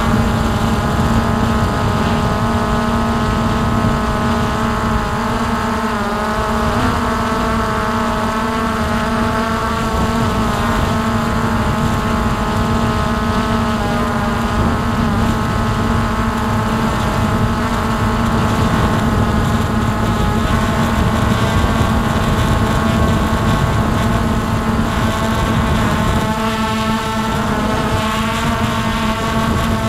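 Hubsan H109S X4 quadcopter's motors and propellers buzzing steadily as it hovers, heard close up through the drone's own camera; the pitch of the buzz shifts a little now and then as the motors adjust.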